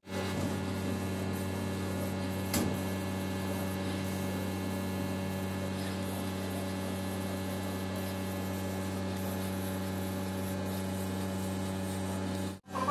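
CO2 laser cutting machine running while it cuts an acrylic sheet: a steady mechanical hum from the machine, with a single short click about two and a half seconds in.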